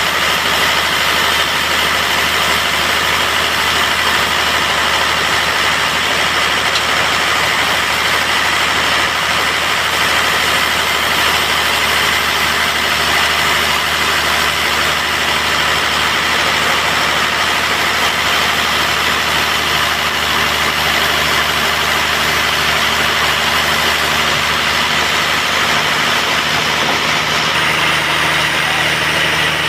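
Band sawmill running: a steady mechanical drone with a low hum and an even hiss.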